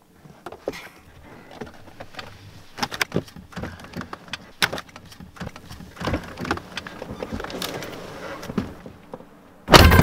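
Irregular clicks, knocks and rustles of someone moving inside a car and opening its door to get out. Loud electronic music with a steady beat cuts in suddenly near the end.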